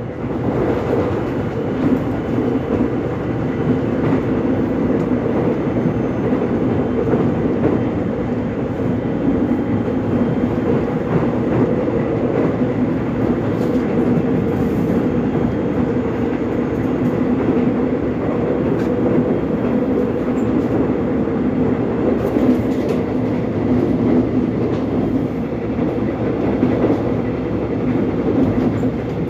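Korean subway train running, a steady rumble with a low drone that doesn't let up.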